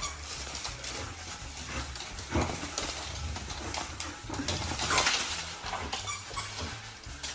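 Australian Shepherds playing with chew toys: mouthing, snuffling and the clatter of the toys, with louder scraping rustles about two and a half and five seconds in.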